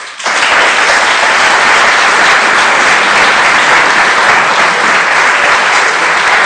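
Audience applauding: many hands clapping, coming in quickly and holding steady.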